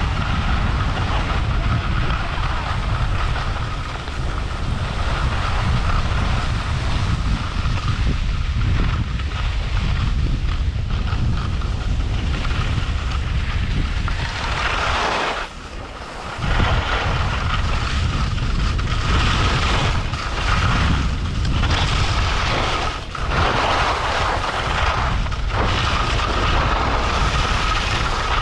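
Wind buffeting the microphone of a moving skier, a heavy low rumble, over the hiss and scrape of skis sliding on packed snow that swells and fades with the turns. The wind rumble drops out for about a second midway.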